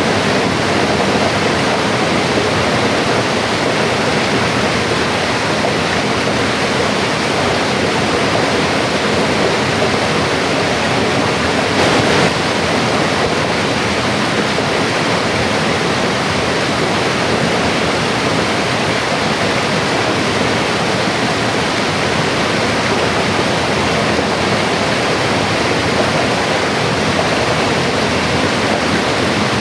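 Mountain river flowing over rocks: a steady, dense rush of water. Nothing else is heard.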